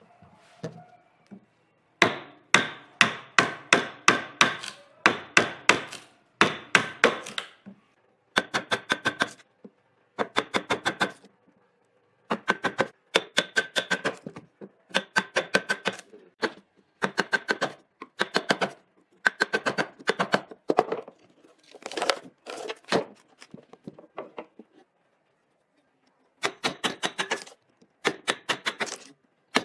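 Quick runs of light tapping strikes of a hand tool on wood, about five a second in bursts of a second or two, each tap with a short metallic ring. The tapping stops for about two seconds near the end, then starts again.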